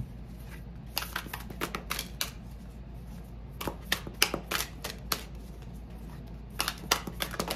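A deck of oracle cards being shuffled by hand: three short runs of quick flicks and taps.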